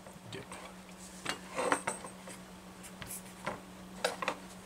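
Scattered light clicks and taps of a small metal chainsaw carburetor and tools being handled on a workbench as a fuel line is pushed onto its fuel barb, over a steady low hum.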